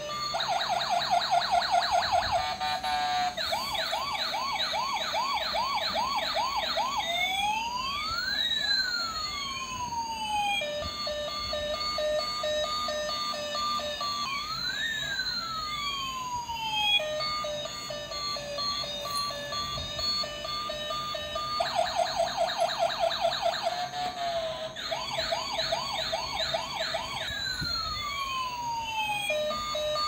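Battery-operated toy police car's electronic siren. It cycles through a fast warble, quick rising chirps and slow rising-and-falling sweeps, with steady electronic beeping between them.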